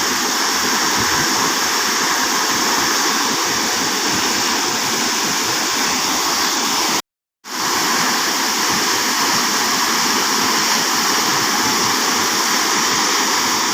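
Waterfall rushing steadily with a dense, even roar of falling water. About halfway through it cuts out completely for under half a second, then comes straight back.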